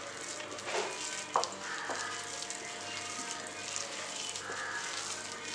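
A hand squishing and kneading a moist grated-cauliflower mixture in a glass bowl: a steady wet rustle with a couple of light knocks about one and one and a half seconds in.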